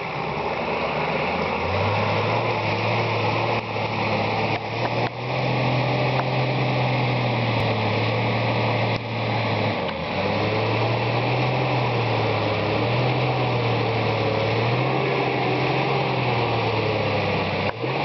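Off-road vehicle engine running, its pitch rising and falling every few seconds as the throttle changes, with a few brief knocks.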